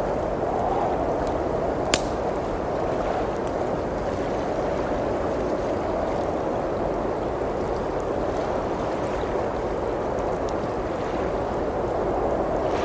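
Blizzard wind blowing steadily outside, with the occasional crackle of a wood fire; one sharp pop about two seconds in.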